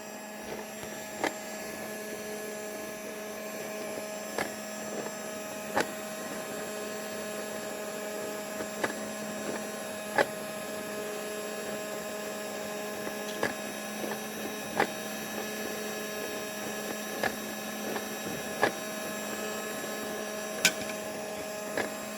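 Toy washing machine running: its small motor hums steadily, and light clicks and knocks come irregularly every second or two as the toys tumble in the drum.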